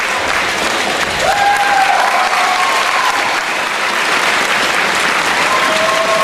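Arena crowd applauding steadily, with a few long held pitched tones rising above the clapping.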